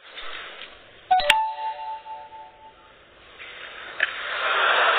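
A short electronic ding: a sharp click and a chime of a few steady tones sounding together about a second in, fading away over about a second and a half. Near the end a wash of hissing noise swells up.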